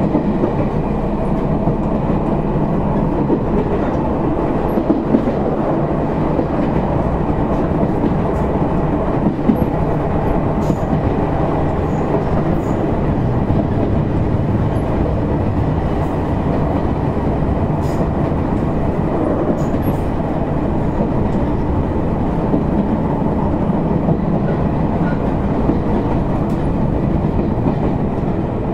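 Izuhakone Railway Sunzu Line electric commuter train, car 7301, running steadily along the line: an even rumble of wheels on rail with a few faint clicks.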